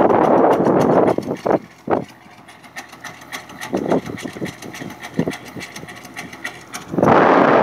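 Tractor engine running steadily, heard under heavy wind buffeting the microphone for about the first second and again near the end.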